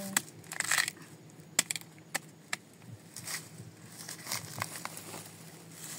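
Irregular sharp knocks and cracks with short scraping sounds, of cassava roots being chopped and cut into pieces.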